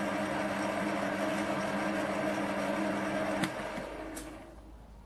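A motor-driven machine running with a steady hum. About three and a half seconds in it is cut off with a click and dies away over about a second.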